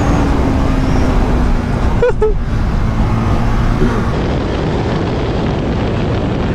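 Motorcycle riding at road speed: steady rushing wind on the camera microphone over the running engine, whose note eases down slightly during the first two seconds.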